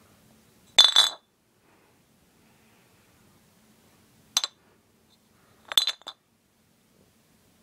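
Glass drink bottles clinking against each other as they are handled. There is a double clink about a second in, a single clink a few seconds later, and a short cluster of clinks near the end.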